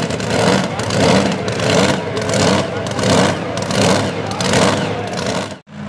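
Supercharged V8 of a super modified 4x4 pulling truck running hooked to the sled, its sound surging rhythmically about twice a second. It cuts off abruptly near the end.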